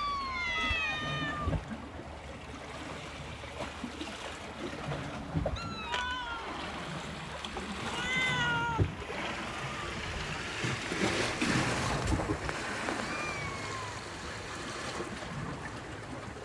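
Calico kitten meowing repeatedly: a run of falling meows at the start, more about six and eight seconds in, and a fainter one later. Sea waves wash against the rocks underneath.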